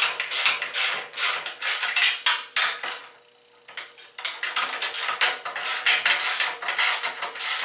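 Socket wrench ratcheting as nuts are run down onto steel carriage bolts: quick repeated clicking strokes, about three or four a second, stopping briefly about three seconds in before resuming.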